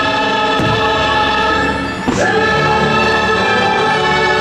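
A fireworks show soundtrack: a choir sings long held chords over an orchestra. The chord breaks off about two seconds in and a new one starts. A firework bang sounds about half a second in.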